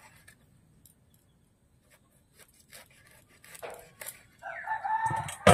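Pointed gourd (parwal) being sliced on a boti, a curved floor-mounted blade: a few soft cutting ticks about two to four seconds in. Near the end a chicken calls, and a sharp knock, the loudest sound, closes the window.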